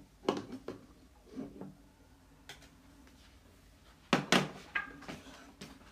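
Scattered sharp knocks and clicks, the loudest a quick pair about four seconds in.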